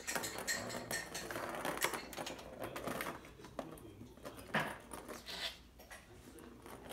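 A kitten clawing and tumbling in a plastic ball-track scratcher toy: claws raking the corrugated cardboard pad and the plastic ring knocking and rattling, busiest in the first few seconds, with a sharper scrape about four and a half seconds in.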